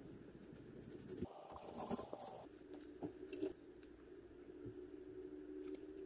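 Faint scratching of a small brush working wood stain into a joint, with a few light clicks, over a steady low hum.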